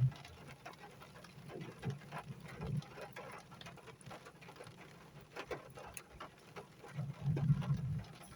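Rain falling in scattered, irregular drops, with a brief low rumble about seven seconds in.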